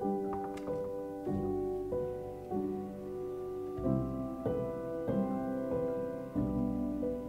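Soft background piano music, slow notes and chords changing every half second or so.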